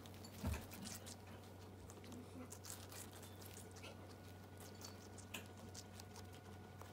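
Two guinea pigs biting and chewing watermelon with the rind: faint, irregular crunching clicks, with one thump about half a second in, over a steady low hum.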